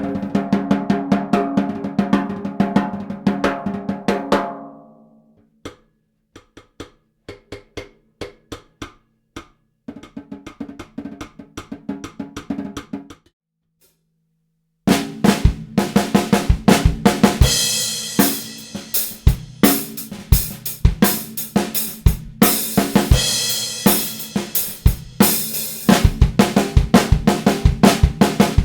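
Vintage Japanese stencil snare drum, a 14 by 5 inch copy of a Rogers, played with sticks and recorded unprocessed: rapid ringing strokes that die away about four seconds in, then softer single strokes spaced out for several seconds. After a short pause about halfway through, loud full-kit playing starts, the snare with bass drum hits under it.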